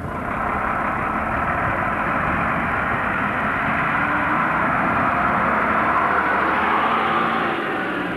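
A single-decker bus's engine running as the bus pulls forward and turns toward the listener. It is a steady, loud sound that swells slightly, then eases near the end.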